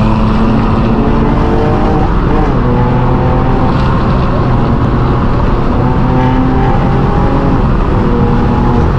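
Straight-piped exhaust of a BMW M4 G82's twin-turbo inline-six at a steady cruise, a loud, even drone whose pitch holds level with a few small shifts.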